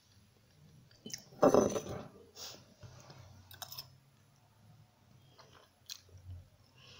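A person eating pasta with a metal fork: wet chewing and sucking in noodles, loudest about a second and a half in, with a few short sharp clicks.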